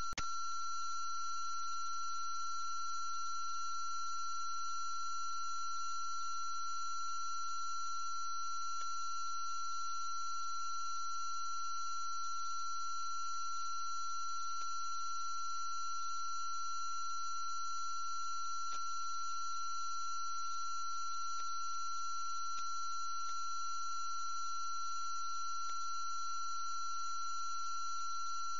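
Steady electronic tone, with several fainter high whines above it and a low hum beneath, unchanging throughout, broken only by a few faint clicks.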